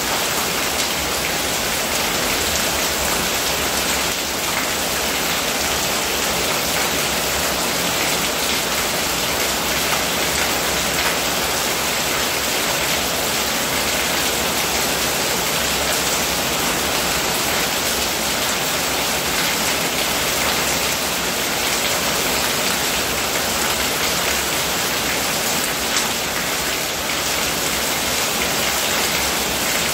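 Steady rain falling and pattering on the ground and roof, with runoff pouring from a roof edge and splashing onto the ground.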